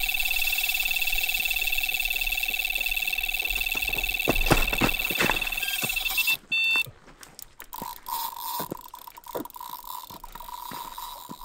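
Electronic carp bite alarm sounding a continuous rapid-pulsing tone: a run, a fish taking line. Sharp clacks of stones underfoot come as the angler reaches the rod, and the alarm cuts off about six seconds in as the rod is lifted. Quieter clicks and a fainter steady tone follow.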